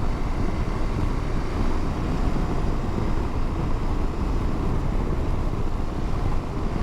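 Motorcycle ridden along a gravel road: a steady mix of engine, tyre and wind noise, picked up by an in-helmet microphone.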